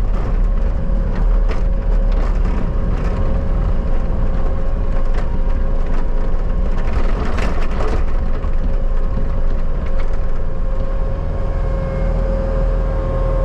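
Bobcat skid steer engine running steadily under load with a steady whine, and scattered cracks and snaps as the grapple handles and dumps a load of brush and old pumpkins.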